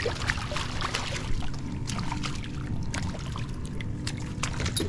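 A hooked sheepshead thrashing at the water's surface beside the boat: irregular splashes and spatter over a low steady rumble.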